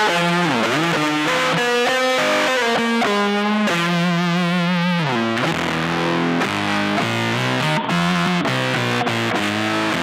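Solid-body electric guitar played through a pedalboard with distortion, freestyle lead lines of quick single notes and string bends, with one note held and shaken in wide vibrato about four seconds in.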